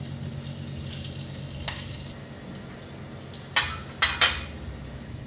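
Sage leaves frying in bubbling melted butter in a stainless steel saucepan, a steady sizzle as the leaves crisp. A few sharp clinks against the pan come once near two seconds in and three times close together at about three and a half to four seconds.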